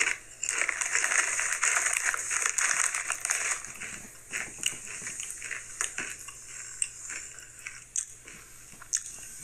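Someone crunching and chewing Sun Chips, dense and loudest over the first few seconds, then fainter with scattered crackles.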